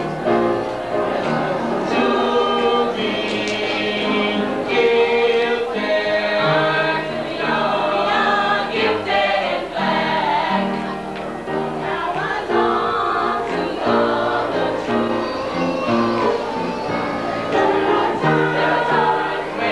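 A large group of voices singing together in chorus, a gospel-style song with no break.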